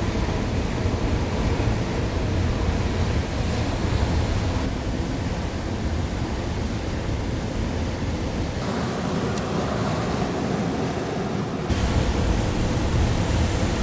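Steady rushing noise of wind buffeting the microphone and surf washing on a rocky shore. The low wind rumble drops away abruptly for a few seconds past the middle, then comes back.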